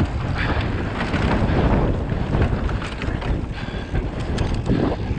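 Wind buffeting an action camera's microphone while a Giant Trance 29er mountain bike rides a rough trail, with a steady low rumble and frequent rattles and clicks from the tyres and bike.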